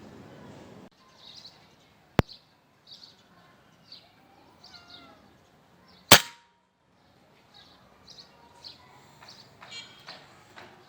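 An air rifle firing a single 18-grain pellet through a chronograph: one loud sharp crack about six seconds in, with a small sharp click about two seconds earlier. Birds chirp faintly throughout.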